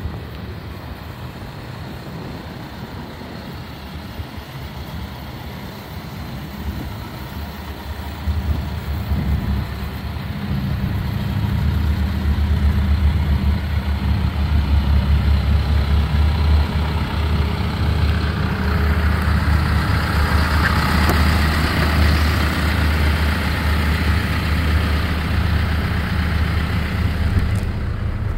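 Isuzu box truck's engine idling steadily with a low, even hum, growing louder about a third of the way in and staying loud.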